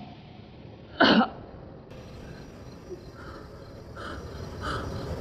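A woman coughs once, sharply, about a second in, as she lies hurt with blood at her mouth. From about three seconds in, faint chirps repeat evenly, roughly every 0.7 seconds.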